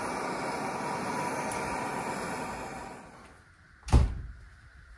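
MAP gas hand torch burning with a steady hiss, heating a cast-iron exhaust manifold. The flame dies away about three seconds in, and a single sharp clank follows near the end.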